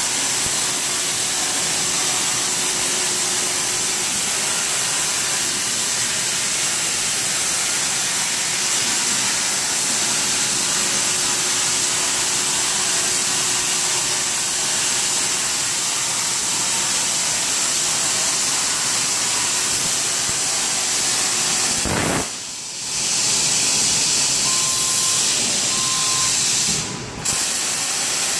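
CNC plasma cutter torch cutting: a steady hiss of the plasma arc and its compressed air. It cuts out for about half a second a little over twenty seconds in, and again briefly near the end, resuming each time as the torch moves to the next cut.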